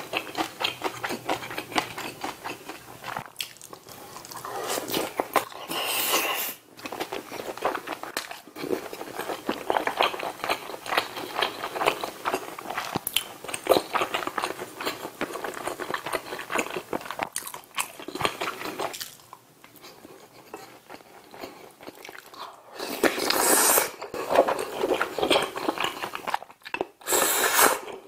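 A person chewing food close to the microphone, with wet smacking and crunching. A few louder noisy bursts stand out, one about six seconds in and two near the end.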